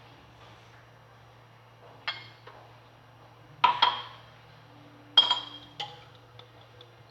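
Kitchenware clinking: a handful of sharp clinks and knocks of glass and pots, each with a short ring. The loudest come as a quick pair about three and a half seconds in and again about five seconds in.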